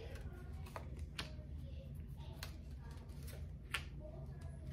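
Tarot cards being handled while they are counted out: a few light, sharp card clicks and snaps at irregular intervals over a low steady hum.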